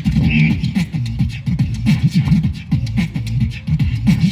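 Beatboxing into a microphone over a PA: deep, gliding vocal bass sounds with quick clicking hi-hat and snare sounds in a steady rhythm.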